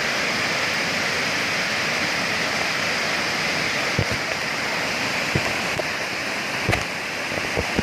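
Waterfall: a steady rush of falling water, with a few short knocks from about four seconds on.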